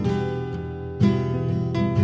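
Guitar music: chords ringing on, with a new chord struck about a second in.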